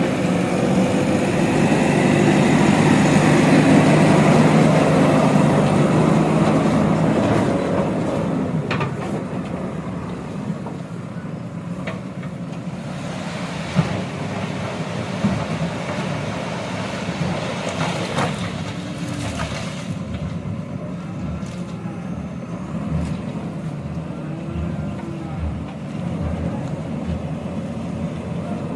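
Heavy diesel construction machinery running, working hard and loudest for the first seven seconds or so, then settling to a quieter steady run. A few sharp knocks come through in the middle.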